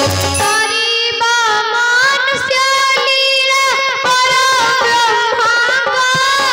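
A child's singing voice, high and ornamented, sliding and bending in pitch through a song line, over a steady held accompanying note.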